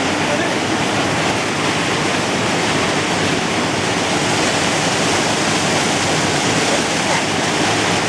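Neergarh Waterfall cascading down rock into a pool: a steady, unbroken rush of falling water.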